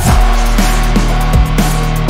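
Background music with a deep bass line and a heavy drum beat; a dense, louder layer comes in at the start.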